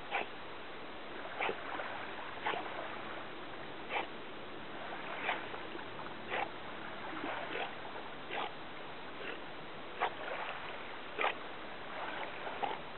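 Small lake waves lapping at the shore, with a short splash about once a second over a steady wash of water.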